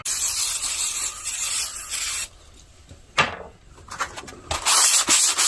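Sandpaper rubbing over the steel saw blade to take off rust, a steady scraping that stops about two seconds in and starts again after a pause of about two seconds.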